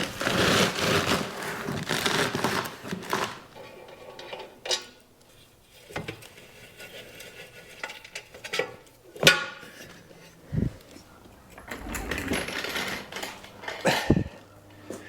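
Metal hand tools being handled and clinking, with a handful of separate sharp knocks and stretches of rustling between them, as work on a motorcycle oil change begins.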